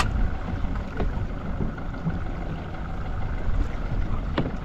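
Steady rush of wind and choppy water around a small boat at sea, with a sharp click at the start and a couple of light knocks near the end.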